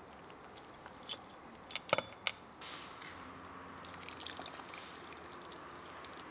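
A metal slotted skimmer clinking a few times against the cauldron, with broth dripping and splashing as boiled dough sheets are lifted out of it. The sharpest clinks come about two seconds in.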